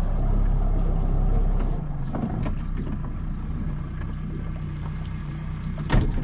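Motorboat engine running steadily with a low, even hum over water noise; the deepest rumble eases a little about two seconds in, and a single knock sounds near the end.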